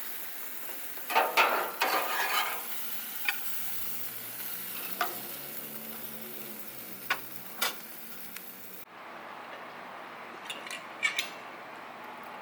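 Food sizzling in a pan as it is stir-fried, with a spatula scraping and clinking against the pan. The sizzle cuts off abruptly near the end, leaving a few clinks.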